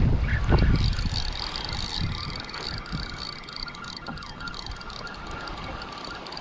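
Wind buffeting the microphone, strongest in the first second and then easing, over the steady wash of small waves breaking at the shoreline.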